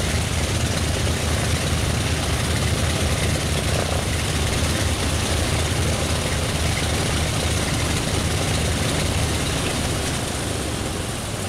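Grumman S-2 Tracker's Wright R-1820 nine-cylinder radial piston engines running steadily on the ground, propellers turning, in a ground engine run. The sound eases slightly near the end.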